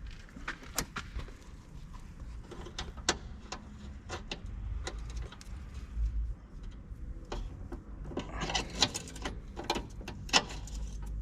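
Irregular sharp clicks and knocks of metal hand tools and brake parts being handled, over a steady low rumble.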